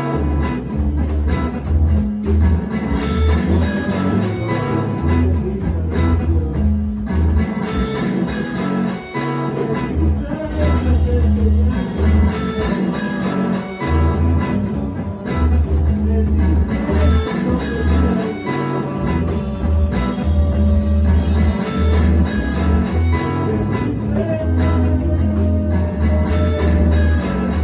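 Live amplified music in which a Stratocaster-style electric guitar plays over a deep bass line that changes note every second or so.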